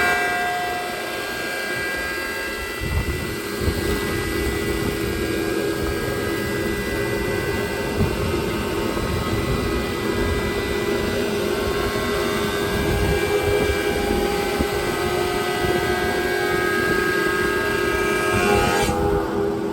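Custom slab planer running along its sawmill rail, a steady motor hum with a constant whine. The higher hiss drops away near the end while the hum carries on.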